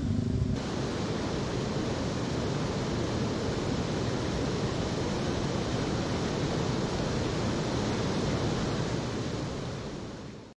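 A steady, even rushing noise, like wind or water, starts about half a second in and fades out near the end.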